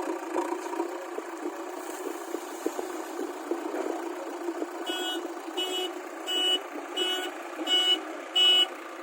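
JCB backhoe loader's diesel engine running, then about five seconds in its reversing alarm starts beeping steadily, roughly three beeps every two seconds, as the machine backs up.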